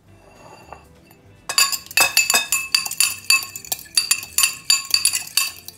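A metal fork whisking egg yolks in a ceramic ramekin, clinking against the bowl's sides about four times a second. The clinking starts about a second and a half in.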